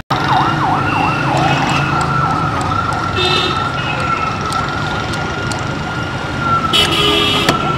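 A vehicle siren sounding on the street: a fast up-and-down yelp for about the first two seconds, then switching to one held wail that slowly drops in pitch near the end, over low traffic rumble.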